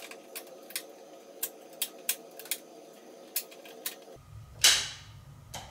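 Circuit breakers in a home electrical panel snapping as they are flipped one after another: about a dozen sharp clicks at uneven intervals over a steady low hum, then a short, louder rush of noise near the end.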